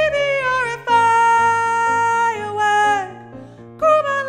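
An alto part of an SATB choral arrangement sung over piano accompaniment, on drawn-out notes without clear words. It opens on a note sliding downward, holds one long steady note from about a second in, and starts another falling phrase near the end.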